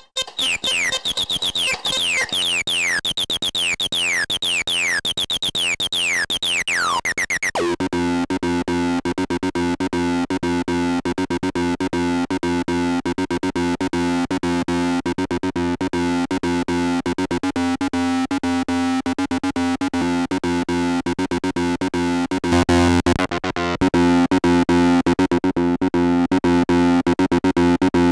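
Venom VB-303 software bass synthesizer, an emulation of the Roland TB-303, playing a sequenced bassline of rapid repeated notes. For the first seven seconds or so, high falling pitch glides repeat over it; then the pattern settles into a dense steady groove that gets louder about 22 seconds in.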